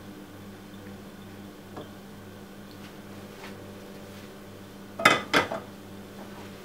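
Two quick, sharp clinks of a metal utensil against a dish about five seconds in, over a steady low electrical hum with a few faint ticks.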